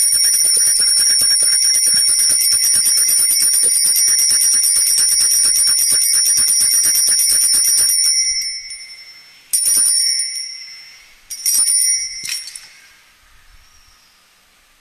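Altar bells at the consecration, shaken in a rapid continuous jingle for about eight seconds while the chalice is elevated, then rung twice more in short shakes before dying away.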